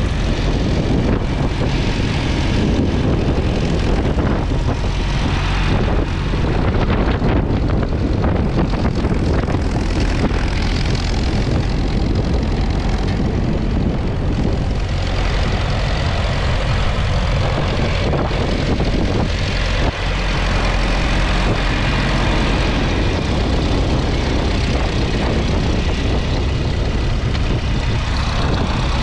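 1961 Massey Ferguson 35's 2.3-litre four-cylinder diesel engine running steadily under load as it pulls a two-furrow mounted plough through the soil.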